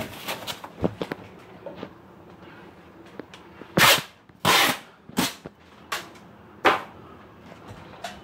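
Masking tape pulled off the roll in short, sharp rips: a few light clicks and rustles, then about halfway through five quick rips, roughly two every one and a half seconds.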